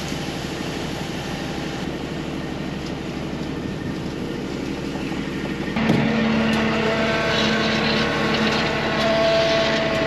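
Diesel engine of farm machinery running steadily. About six seconds in it suddenly gets louder, and a steady low hum with higher tones above it sets in.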